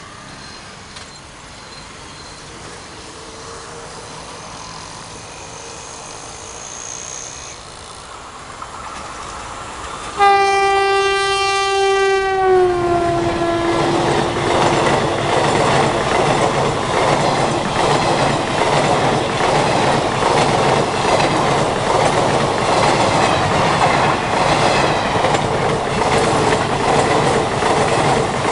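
An Indian Railways WAP-4 electric locomotive hauling an express train approaches at speed, sounds one long horn blast about ten seconds in, and the horn's pitch drops as it passes. The locomotive and coaches then rush past, wheels clattering rhythmically over the rail joints.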